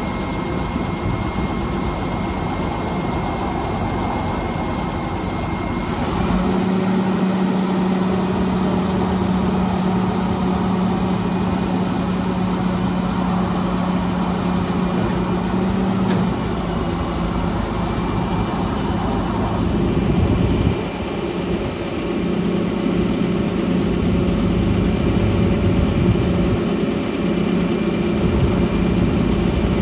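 The diesel engine of a Ford F750 digger-derrick truck runs steadily while the Terex Commander 4047 boom is being worked. Its hum steps up in pitch and loudness about six seconds in, drops back a little past halfway, and steps up again a few seconds later, as the load on the boom hydraulics changes.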